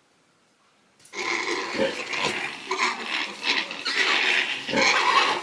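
Newborn piglets and their sow in the farrowing pen, a busy, irregular run of pig squeals and grunts that starts about a second in.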